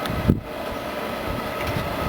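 Continuous frying machine running with a steady mechanical hum, broken by one short knock about a third of a second in.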